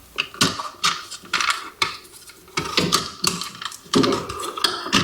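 Irregular clicks, taps and rustles of hands working electrical cable through an outlet box, with a somewhat louder knock about four seconds in.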